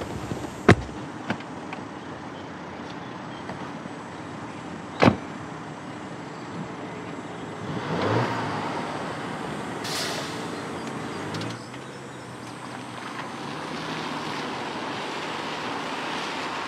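A car door shutting with a sharp thump, a second thump about four seconds later, then a car pulling away, its engine swelling about eight seconds in.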